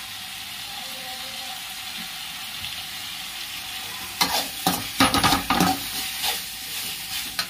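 Onion-tomato masala sizzling steadily in a hot metal kadhai as its water cooks off. About four seconds in, a slotted steel spatula scrapes and knocks against the pan several times in quick succession over about two seconds, with one more scrape near the end.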